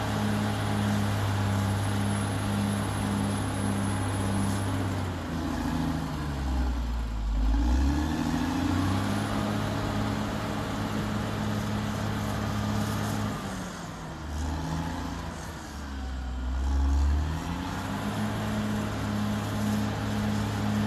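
Caterpillar D6R XL bulldozer's diesel engine running at high revs as the blade pushes soil, with a steady pulsing hum. Twice the engine note sags and climbs back, the low rumble swelling as the revs drop.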